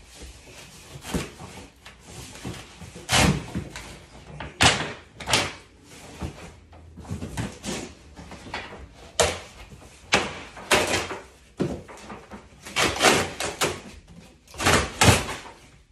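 A large cardboard furniture shipping box being pulled open and worked off its contents: irregular cardboard scrapes, rustles and thumps, some of them sharp and loud, as the flaps are yanked and the box is shoved.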